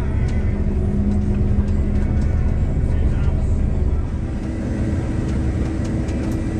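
Vehicle engine running steadily while driving on the road, its note shifting lower and a little quieter about four seconds in.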